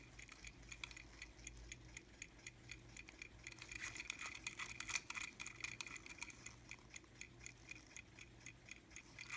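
Ingraham Biltmore dollar pocket watch's pin-lever movement ticking faintly, a rapid even ticking of several beats a second, showing the freshly serviced watch is running.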